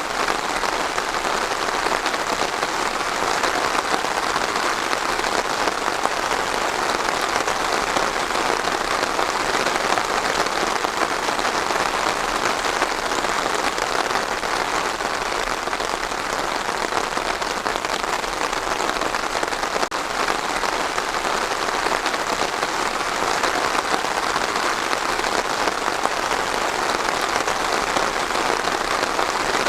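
Steady rainfall, an even patter of rain on a surface with no pauses or changes.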